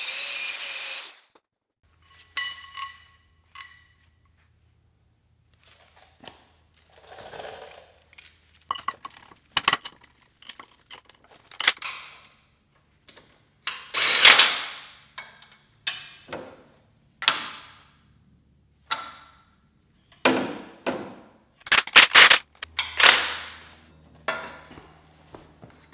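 An angle grinder cutting steel for about the first second, cutting off abruptly. Then a long series of irregular metallic clanks, knocks and clinks, some ringing briefly, as steel parts and hand tools are handled while a grill guard is fitted to a tractor's front end.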